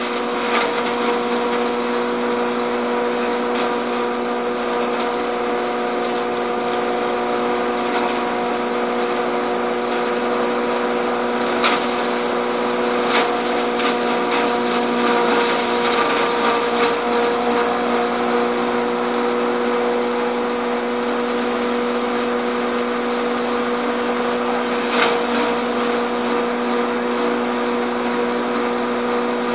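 Biomass straw hammer mill running steadily under load, a constant machine hum and whine as dry stalks are fed in and ground. A few sharp cracks stand out above it as stalks are smashed.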